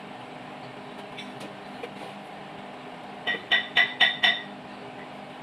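Five quick metallic clinks about three seconds in, each ringing briefly at a clear pitch, like a small steel part or tool being tapped against metal engine parts, over a steady low hum.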